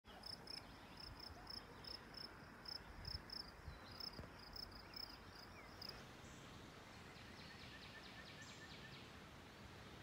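Faint woodland ambience: a high chirp repeats about three times a second, then after a cut a bird gives a short trill of quick falling notes, over a soft steady hiss.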